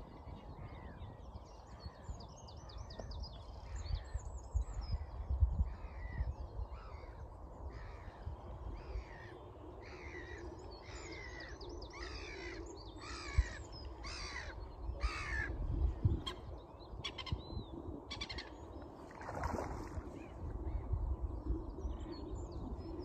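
A bird calling over and over, about two calls a second, the series growing louder about halfway through and then fading out.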